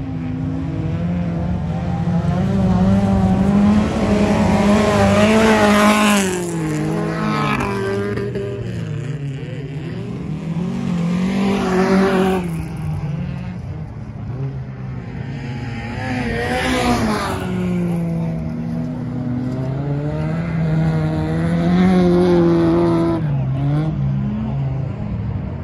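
Folkrace cars racing on a gravel track: several engines revving up and down through the gears, swelling loud as cars pass close several times and fading away between passes.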